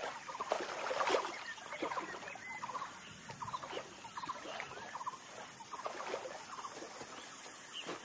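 Wildlife ambience of short chattering animal calls, each a quick run of clicks, repeating about once a second over a steady background hiss. A brief louder rustle or knock comes about a second in.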